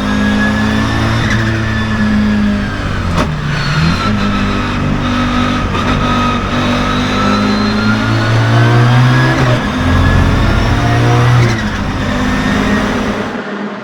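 Audi 200 turbo quattro's 2.2-litre turbocharged five-cylinder pulling hard through the gears, with a gliding turbo whistle over the engine note. Short sharp turbo chirps come at the gear changes, several times.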